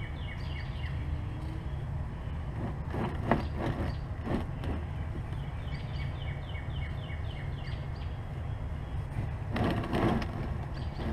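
A hand working a spin-on oil filter under a pickup truck: a few light clicks and knocks about three to four seconds in, and a scraping rustle near the end as the plastic drain pan is shifted. A bird sings two runs of quick, repeated chirps over a steady low hum.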